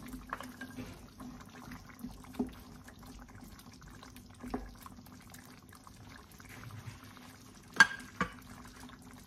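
Wooden spoon stirring cubed potatoes into a pan of simmering tomato-based pork stew, with soft scrapes and clicks against the pan over a faint steady hum. Near the end come two sharp knocks close together as the spoon strikes the pan.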